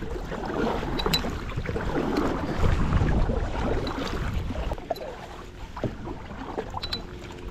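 Tandem kayak being paddled: double-bladed paddles dipping and splashing, water sloshing at the hull, with wind rumbling on the microphone that eases about five seconds in.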